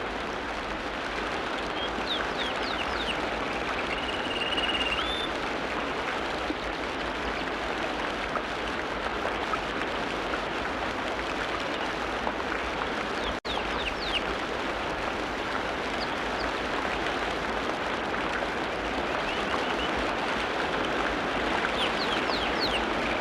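Steady hiss of rain or rushing water, with birds chirping over it: a few quick high chirps near the start, a short held whistle that lifts at its end a few seconds in, and more chirps about halfway and near the end. The sound drops out for an instant about halfway.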